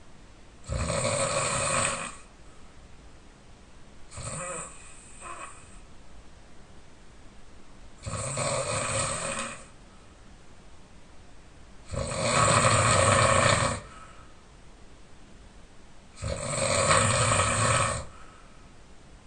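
A man snoring heavily in his sleep: a loud snore of about one and a half to two seconds roughly every four seconds, four loud ones and a weaker, shorter one about four seconds in.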